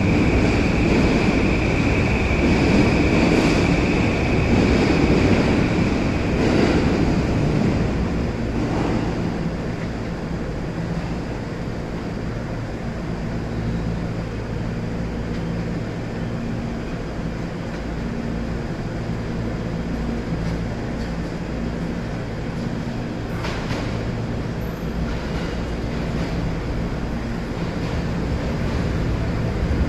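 209 series electric train at a station: a steady high tone for the first few seconds, then a steady low hum, with one short clank about 23 seconds in.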